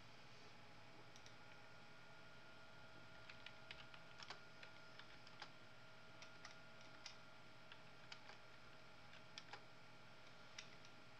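Faint, scattered, unevenly spaced clicks from a computer desk, like keys or buttons being pressed, starting about three seconds in. Underneath is near-silent room tone with a faint steady hum.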